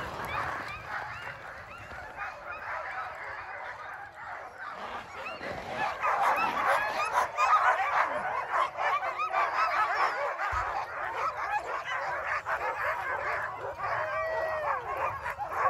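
Many sled dogs barking and yelping together in an overlapping chorus of short high yips, louder and denser from about six seconds in.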